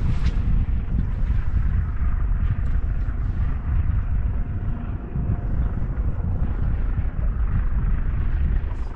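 Strong wind buffeting the microphone: a heavy, uneven low rumble with a rushing hiss above it.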